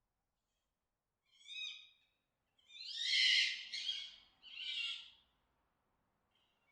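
Fox giving its mating-season call: three hoarse, high-pitched screams, the middle one loudest and longest.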